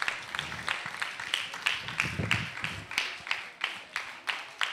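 Audience applauding, the clapping falling into an even beat of about three claps a second.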